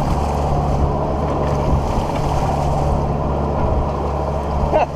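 A sailboat underway, bashing into steep chop: rushing wind and water over a steady low hum, with a brief higher sound just before the end.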